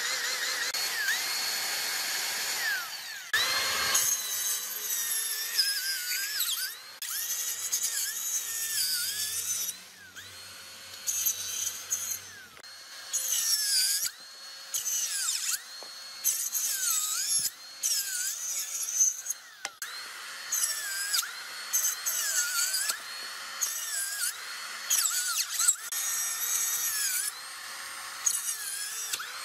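Cordless 24 V circular saw with a 125 mm blade, its motor whining, then cutting wood and bamboo in many short bursts. The motor pitch dips each time the blade bites and recovers in between.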